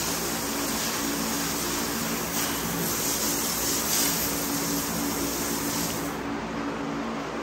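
Water spray hissing as concrete kennel runs are hosed down, over a steady motor hum; the hiss drops away about six seconds in.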